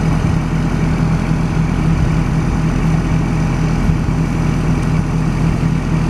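Truck-mounted crane's engine running steadily with an even low drone while the crane lifts a trimaran out of the water.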